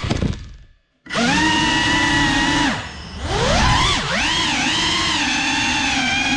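Whine of a GEPRC Cinelog 35 cinewhoop's motors and ducted propellers. The sound cuts out completely for a moment about a second in, then spins back up. The pitch dips near the 3-second mark and climbs again before holding fairly steady.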